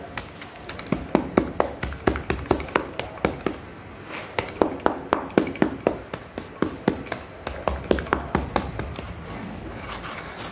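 Small trowel patting and scraping damp gritty sand packed into plastic tub moulds, a quick series of sharp taps, about three a second, as the tops are pressed flat.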